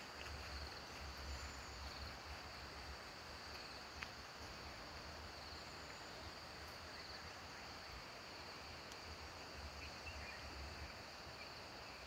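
Faint outdoor ambience: a steady, high-pitched insect trill over a soft hiss, with an uneven low rumble and a single sharp click about four seconds in.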